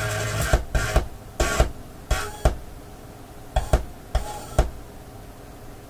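Short snatches of music cutting in and out through the loudspeakers, each starting with a thump, about seven times in under five seconds before they stop: a vintage Sony CD player failing to play properly, heard through a 6C33 OTL tube amplifier.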